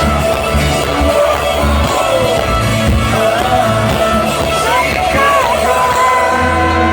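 Live stadium rock concert heard from the crowd: the band plays a song at full volume, with loud bass and voices singing along. The sound is washed-out and boomy, as a phone recording from among the audience usually is.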